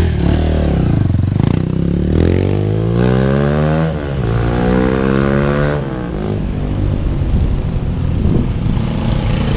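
Carburetted GPX Rato Esquire 250 motorcycle, fitted with a Keihin 28 mm carburettor, accelerating hard through the gears: the engine note climbs, drops sharply at an upshift about four seconds in, climbs again and drops at a second upshift about two seconds later.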